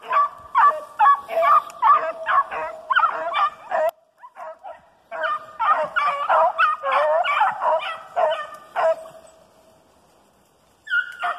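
A pack of rabbit-hunting dogs bays in a rapid run of calls while trailing a rabbit. The calls break off about four seconds in, pick up again a second later, fall quiet near nine seconds, and start again just before the end.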